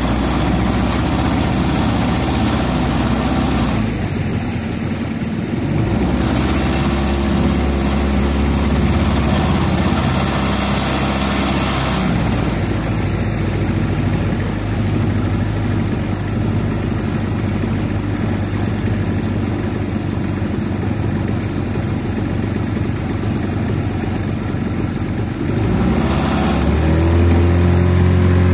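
Boat engine running at low speed, with a wash of water and wind noise; about three-quarters of the way through its pitch rises and it gets louder as the boat speeds up.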